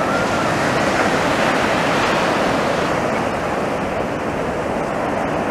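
Sea waves breaking and washing up the sand in a steady rushing surf, swelling a little around two seconds in and easing after.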